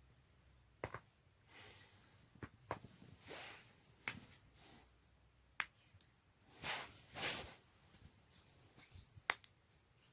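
Spinal joints of the neck and back being cracked: a string of about six sharp pops spread over several seconds, the loudest near the end, with a few short rushes of noise between them.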